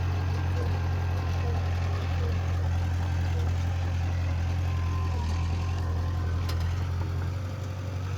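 Heavy diesel engine of earthmoving machinery running steadily at a low, even pitch, with a single brief click about six and a half seconds in.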